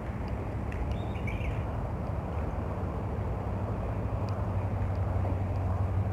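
Steady low rumble of traffic on an elevated highway overhead, with a constant low hum underneath.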